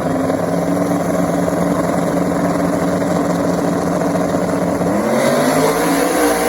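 Drag-racing car engine running loud and steady with a rough, lumpy note, then revving up sharply about five seconds in.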